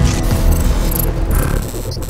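Electronic logo-reveal sound design: a low rumble with a busy layer of clicks and short whooshing sweeps, one sweep near the end.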